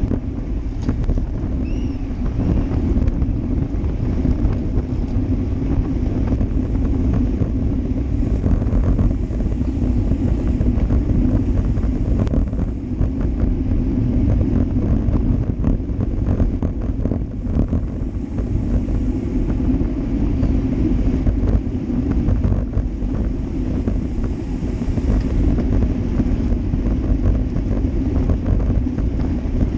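Wind rushing over a GoPro Hero Session camera mounted on a road bike riding in a pack at speed, mixed with tyre noise on asphalt. It is a steady low rumble with a hum.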